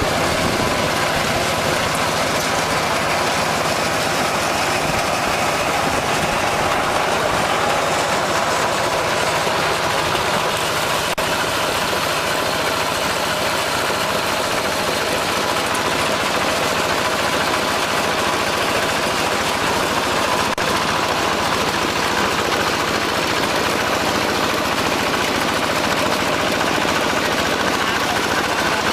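Mini combine harvester running steadily: a continuous, even engine and machinery noise with no change in speed.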